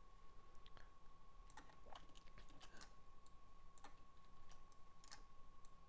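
Faint, irregular clicks of a computer mouse and keyboard during editing, over a thin, steady background tone.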